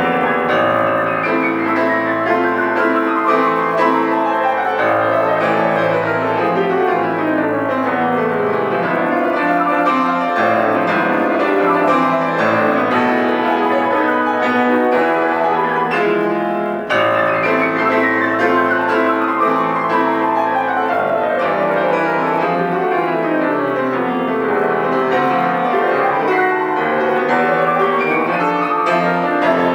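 Solo piano playing classical music, with fast cascading runs that sweep down the keyboard twice.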